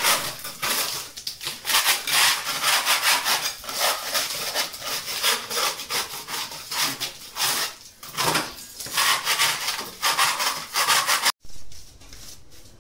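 Hand scraper rasping over a plastered wall in quick repeated strokes, stripping off paint that has blistered from damp in the wall. The scraping stops abruptly near the end.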